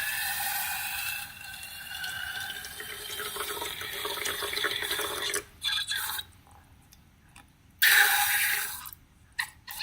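Wet, sticky slime squelching and pouring for about five seconds, then stopping abruptly. Shorter squishes follow, with one loud burst near the end.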